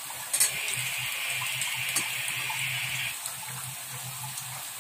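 Chopped ginger sizzling in hot oil in a wok: a steady frying hiss that grows louder for about three seconds after a light click near the start.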